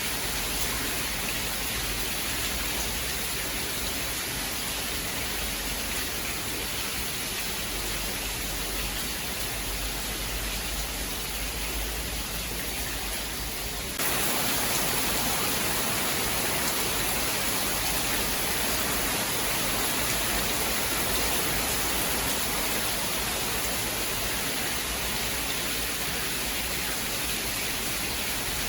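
Steady heavy rain with an even hiss. About halfway through it jumps suddenly to a louder, brighter rain, like a cut to another recording. No thunder is heard.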